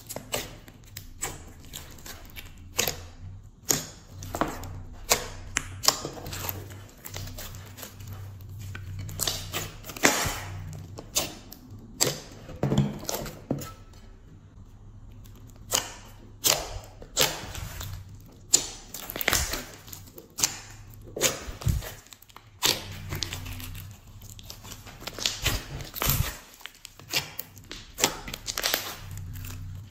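Glossy slime being squeezed and kneaded by hand, giving irregular wet pops and crackles as trapped air bursts, about one or two a second, with a short lull partway through.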